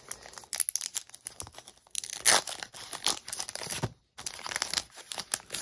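Foil wrapper of a Pokémon booster pack crinkling and tearing as it is opened by hand, in irregular crackles, the loudest about two seconds in, with a brief total dropout about four seconds in.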